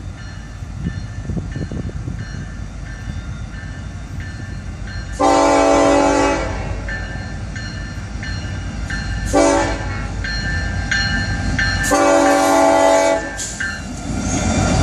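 Diesel freight locomotive horn sounding a long blast, a short one, then another long one, part of the grade-crossing horn signal. Under it a railroad crossing bell rings steadily, and the low rumble of the approaching locomotive grows louder near the end.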